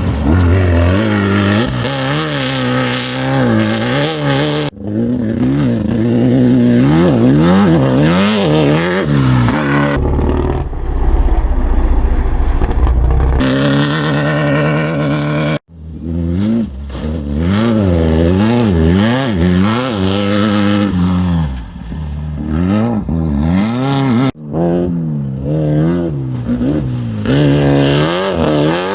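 Off-road race vehicle engines at full throttle, the note rising and falling again and again as they rev through the gears. The sound is a run of short clips that cut off abruptly into one another, one with a heavy low rumble.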